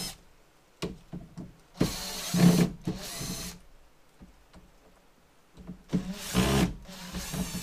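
Makita cordless drill backing screws out of a car door frame: the motor runs twice for about two seconds each, with a few small clicks before the first run.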